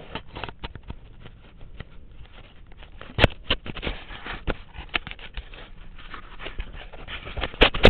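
Handling noise on a mounted action camera: irregular clicks, knocks and rustling close to the microphone, with a sharp knock about three seconds in and another near the end.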